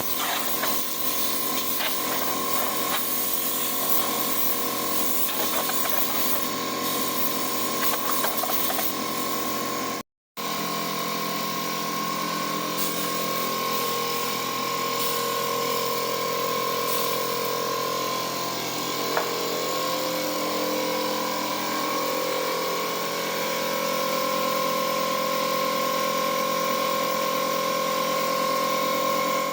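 Paint-spraying equipment running steadily as clear coat is sprayed onto a cabinet door: an even motor whine over hissing air.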